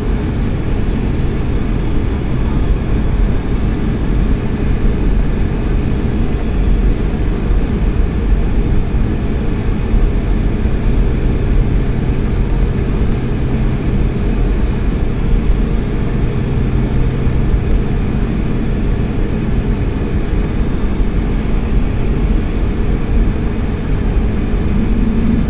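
Boeing 757-200's jet engines at low ground power, heard inside the passenger cabin as a steady low-pitched noise with a faint hum.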